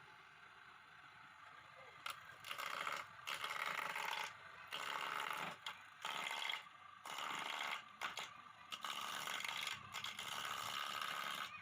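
Homemade wood lathe turning a wooden leg, with a cutting tool scraping the spinning wood in repeated starts and stops of about half a second to a second and a half each, beginning about two seconds in.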